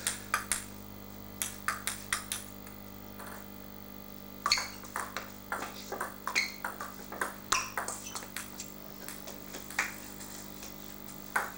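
Table tennis ball clicking off bats and table: a few separate clicks in the first couple of seconds, then a rally of quick, evenly spaced clicks from about four and a half seconds in to about ten seconds.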